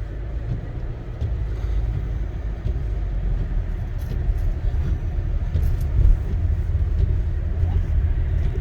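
Car driving on a snow-covered road, heard from inside the cabin: a low, steady rumble of engine and tyres that grows a little louder over the first couple of seconds.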